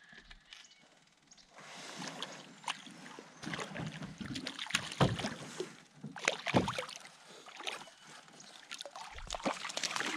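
Irregular knocks and clatters against a canoe's hull, with water splashing, starting about a second and a half in.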